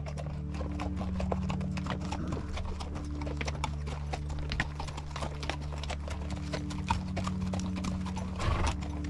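Hooves of a passing string of pack mules clopping on the trail, many uneven steps overlapping.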